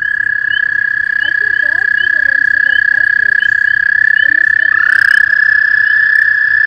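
Toad calling with its throat sac puffed out: one long, steady, high-pitched trill. A second trill glides up in pitch to join it about five seconds in.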